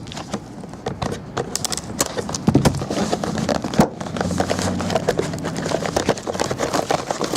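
Trading-card box and packs being handled and opened: a quick, uneven run of clicks, taps and rustles of cardboard and wrapper.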